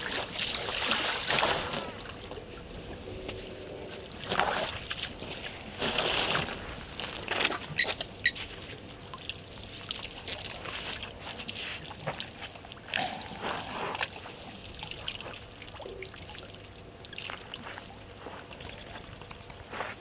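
African elephants drinking at a waterhole: irregular splashing and trickling of water from their trunks, with louder splashes several times in the first half.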